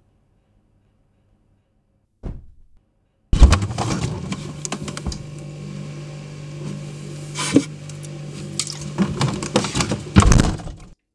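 A refrigerator is opened: a short thump, then the fridge's steady low hum with clicks, rattles and clinks of items on its shelves being moved, with loud clatters about seven and ten seconds in. The sound cuts off suddenly near the end.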